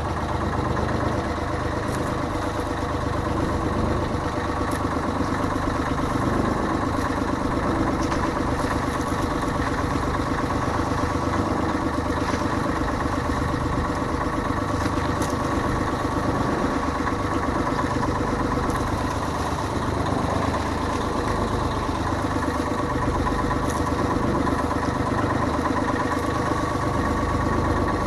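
Engine of a motorized outrigger fishing boat running steadily under way, a constant drone that holds one pitch.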